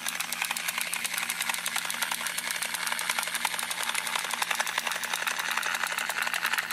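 The 2006 Hess toy helicopter's battery-powered chopper sound effect and spinning rotors: a rapid, steady chopping tick over a small motor's hum.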